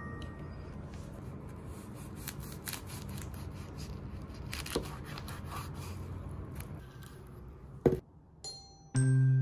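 Kitchen knife slicing through a seaweed-wrapped gimbap roll on a camphor-wood cutting board: crisp crunching of the dried seaweed (gim) with irregular ticks as the blade meets the board. A single sharp knock comes near the end.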